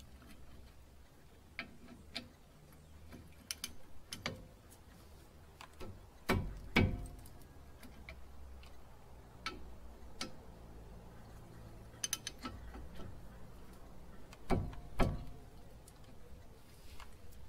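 Hand ratchet wrench clicking in short runs while turning a front brake caliper bolt, with metal clinks of the tool and caliper. There are louder metallic knocks twice: about six seconds in and near the end.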